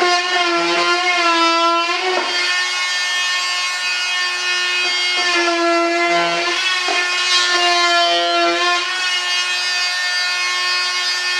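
High-speed rotary cutter whining steadily as it trims cured fiberglass, its pitch dipping briefly a few times as it bites into the cut.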